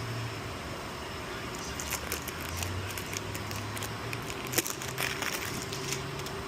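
Scattered small clicks and crackling, like something being handled, with one sharper click past the middle, over a steady low hum.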